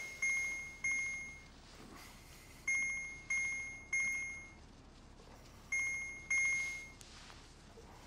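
Electronic alarm clock beeping: short high-pitched beeps in groups of two or three, repeating about every three seconds.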